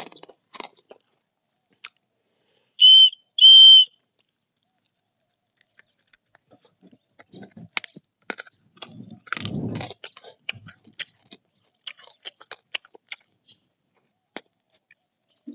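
Two short, shrill, steady whistle blasts, about 3 s in, from a candy whistle lollipop blown like a flute. Later come scattered crisp clicks and crunches of hard candy being bitten and chewed.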